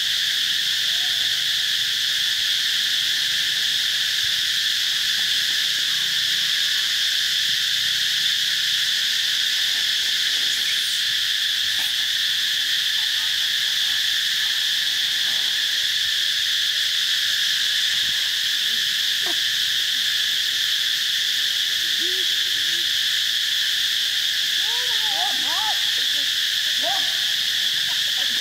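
A dense insect chorus, a steady high-pitched drone that does not let up. A few faint, short calls that rise and fall in pitch come in over it near the end.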